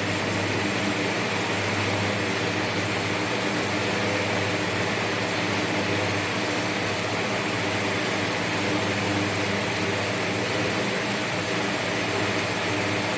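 Steady whir of a running fan with a low hum underneath, unchanging throughout.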